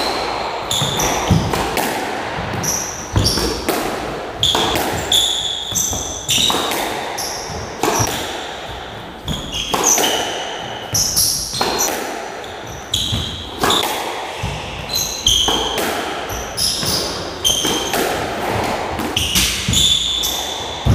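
Squash rally: the ball cracks off rackets and the court walls about once a second, ringing briefly in the enclosed court, with short high squeaks, most likely shoes on the wooden floor, between the hits.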